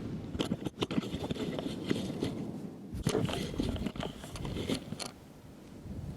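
Strong wind buffeting the microphone, with crackling rustles and scrapes close to it; it eases briefly about five seconds in.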